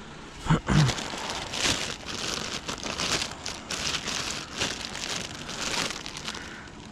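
Plastic trash bags rustling and crinkling as they are handled and pushed aside while rummaging through a curbside trash pile, with a couple of dull thumps about half a second in.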